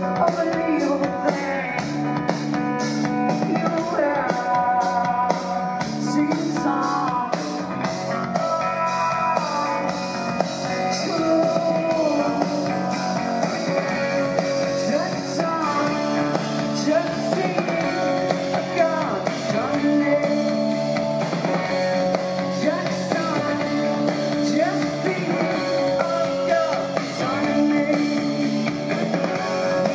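Live rock band performance: a woman singing over guitar and a drum kit, with a regular cymbal tap in the first several seconds.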